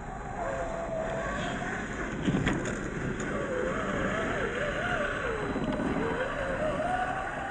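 Scale RC crawlers' brushed 540 electric motors and gear trains whining, the pitch rising and falling as the throttle is worked, with tyres crunching over loose gravel and dirt. A sharp knock comes about two and a half seconds in.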